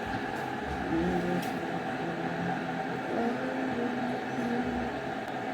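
Steady background noise with faint, distant voices mixed in.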